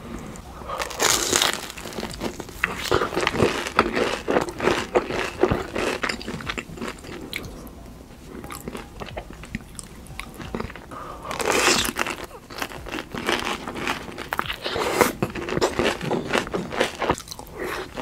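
Close-up eating sounds: bites into crisp breaded corn dogs dipped in cheese sauce, then crunchy chewing. The crunching is loudest about a second in and again about two-thirds of the way through.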